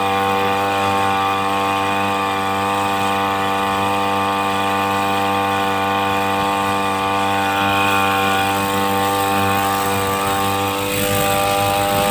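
Two-stroke engine of a motorized backpack mist sprayer running steadily at high revs, blowing insecticide spray over fruit trees. The engine pitch stays constant throughout.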